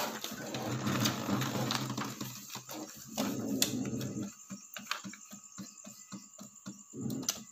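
Brother DCP-T710W ink-tank inkjet printer taking in a single sheet and printing. Its motor runs for about four seconds, then gives way to quick regular ticking, about four to five a second, over a faint steady high hum.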